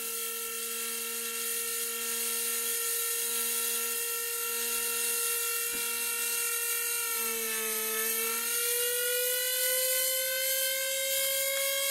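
Bedini recovery-circuit pulse motor spinning at close to 30,000 rpm, giving a high steady whine. About eight seconds in the pitch dips briefly, then it climbs slowly as the current is raised. A lower buzz cuts in and out during the first nine seconds.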